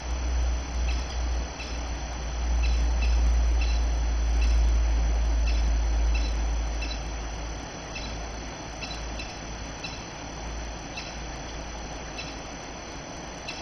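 Male crested kingfisher giving short, sharp calls, singly or in quick pairs, about once a second and unevenly spaced: calling for its mate while holding a fish for courtship feeding. Under the calls runs a steady low rumble, loudest in the first half.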